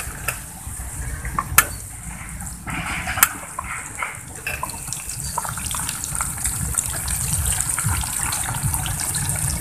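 Small fish and shrimp deep-frying in hot oil in a small pot: a steady sizzle with dense crackling and a few sharp pops in the first few seconds, over a low rumble.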